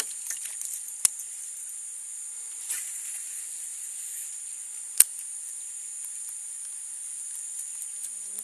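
Steady high-pitched insect chorus from the marsh, with a few sharp clicks: one about a second in and a louder one about five seconds in.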